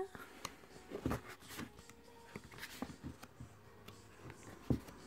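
Pages of a photo book being turned and handled: soft paper rustles and a few light taps, the sharpest near the end.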